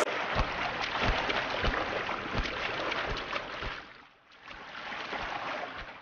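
Scaly-sided merganser running across the water surface on takeoff: wingbeats and feet slapping the water, with repeated splashing slaps. The splashing dips briefly about four seconds in, resumes, then cuts off.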